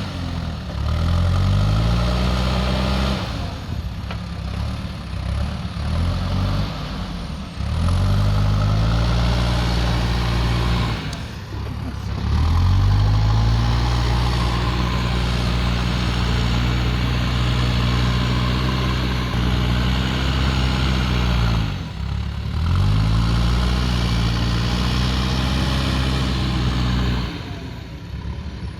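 JCB backhoe loader's diesel engine running hard as the machine works. Its speed sags and climbs back up several times as the hydraulics take load.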